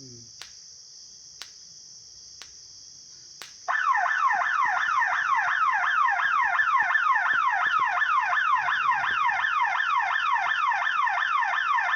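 Electric fence energizer ticking about once a second, then about four seconds in the fence's alarm siren starts: a loud wail of rapidly repeating falling sweeps, about three a second, set off while the fence is being tested.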